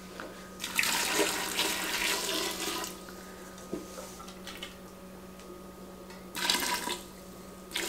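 Hot water poured from a metal cup into a large glass crock of sliced cucumbers: a long pour starting about a second in and a short one near the end.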